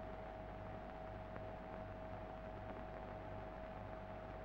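Faint steady hiss and low hum with a thin unchanging tone above it, the background noise of an old film soundtrack, with no distinct sound events.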